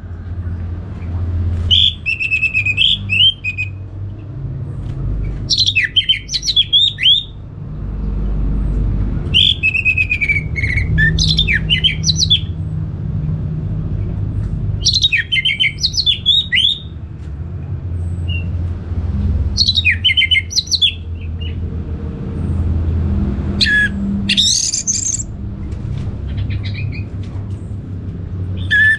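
Orange-headed thrush singing: short phrases of rapid, varied whistled notes, one about every four seconds, over a low background rumble.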